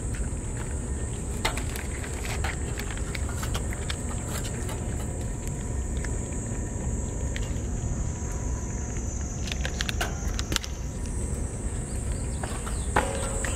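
Stray cats eating wet food from a metal dish, with scattered clicks of chewing and licking, over a steady high-pitched insect drone and a low rumble.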